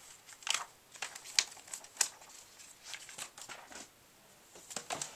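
Protective plastic film being peeled off a new laptop LCD panel: irregular crackling and short rasping strokes in several spurts.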